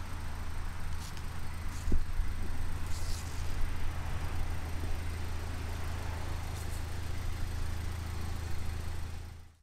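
Pontiac Solstice GXP's turbocharged 2.0-litre four-cylinder idling steadily, with a single sharp knock about two seconds in.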